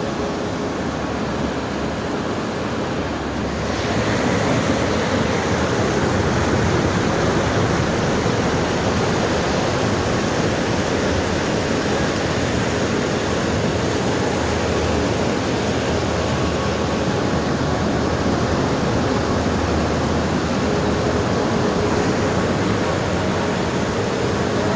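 Waterfall's falling water rushing in a steady, dense noise, growing louder about four seconds in.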